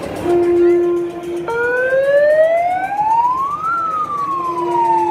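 A siren wailing: a steady held tone, then one slow rise in pitch over about two seconds and a slower fall, with the steady tone coming back under the falling wail.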